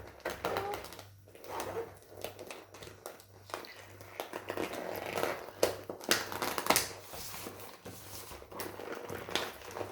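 Plastic toy packaging crinkling and rustling as it is pulled open by hand, with sharper crackles a little past the middle.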